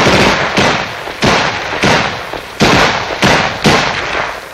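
A string of loud gunshots fired in irregular succession, about seven, each a sharp bang with a fading echo.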